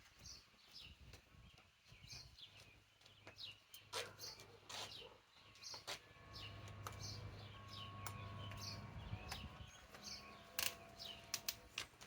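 Quiet outdoor background with small birds chirping, short high calls scattered throughout. A few light clicks are heard, and a low steady hum runs for a few seconds in the middle.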